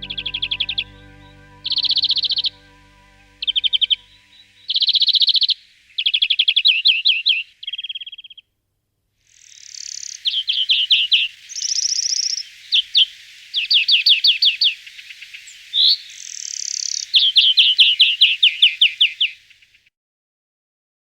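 European greenfinch song: repeated phrases of rapid twittering trills mixed with short, broader notes, with a pause of about a second a little past the 8-second mark. Background music fades out during the first few seconds.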